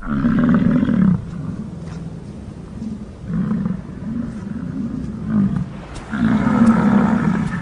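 Bison bulls bellowing in the rut: deep, rough roars, a long one at the start and another near the end, with shorter grunting roars between.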